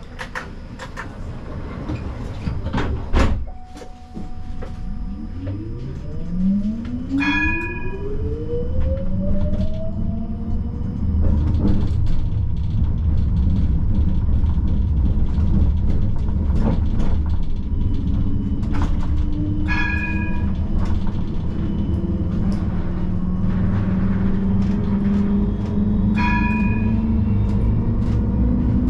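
Siemens Combino tram pulling away: the traction motors' whine rises in pitch as it speeds up, then it runs on with a steady rumble of wheels on rails. A loud thump about three seconds in, and the tram's bell rings briefly three times.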